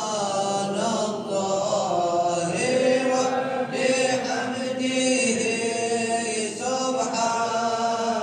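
Unaccompanied male chanting of an Islamic dhikr, the invocation sung between each four rak'as of Tarawih prayer in Ramadan. It moves in long, held, wavering notes with brief breaks.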